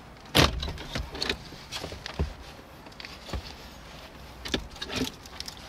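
Plastic knocks and clicks of a Toyota RAV4's factory touchscreen head unit being pulled out of the dashboard by hand: one sharp knock just under half a second in, then scattered lighter clicks and rubs.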